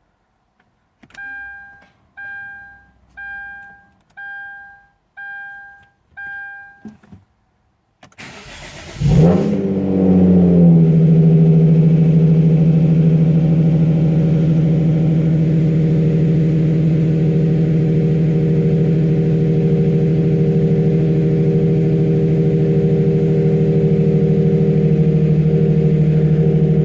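Six short two-tone dashboard warning chimes, about one a second, then the Genesis Coupe's 3.8-litre V6 is cranked on a cold morning: it catches after a brief crank, flares up and settles into a steady fast idle. It starts and runs on a newly installed jumper harness with 3D-printed connectors.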